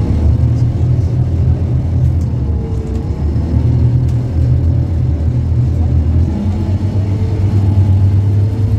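Scania K230UB city bus's five-cylinder diesel engine running with a steady low drone, with a faint whine that rises and falls in pitch.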